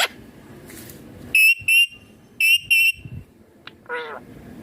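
Indian ringneck parakeet giving two pairs of short, shrill, high chirps about a second apart, then a single lower call that bends in pitch near the end.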